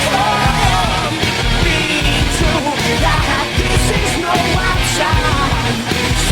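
Loud punk-rock music with shouted singing over a driving beat.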